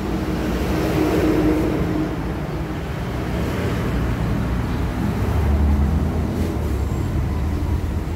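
Road traffic going by, with vehicle engine noise swelling about a second in and again around five to six seconds in.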